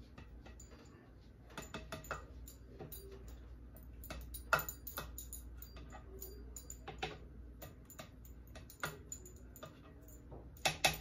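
Scattered light clicks and taps of a ladle against a glass punch bowl as pudding is spooned in, loudest near the end.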